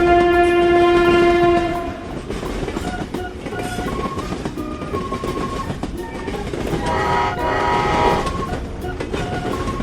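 Train sound effects: a train horn sounds loud and steady, then cuts off under two seconds in. Wheels then run on with a regular clickety-clack over rail joints, and a second, shorter horn chord sounds about seven to eight seconds in.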